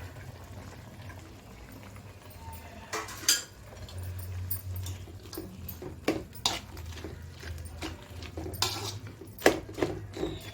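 Spoon and pot clinking with scattered knocks and splashes as pieces of vada are dropped and stirred into a boiling curry gravy, over a low steady hum.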